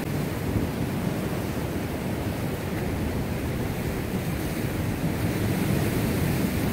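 Ocean surf washing and breaking against a rocky shore, a steady rushing noise, with wind buffeting the microphone.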